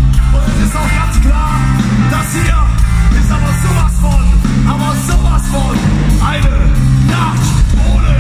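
Live rock band playing through a concert PA, with guitar, bass and drums and a sung lead vocal, heard from within the audience.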